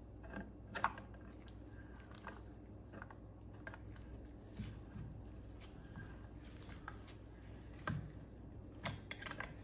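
Faint, scattered clicks and taps of a half-inch wrench on a trolling motor propeller's nylon-insert locking nut as it is turned, the sharpest click about a second in.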